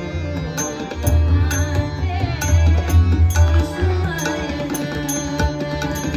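Instrumental interlude of a Marathi devotional abhang: melodic instruments playing over drums that keep a steady beat, with a heavy bass that eases off about two-thirds of the way in.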